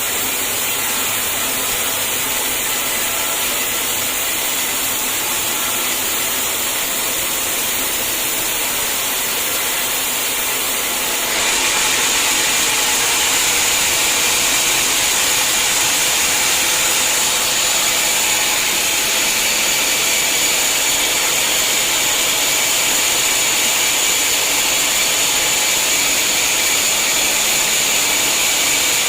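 Sawmill saw running steadily, a constant high whine over a rushing noise; about eleven seconds in it gets louder and brighter.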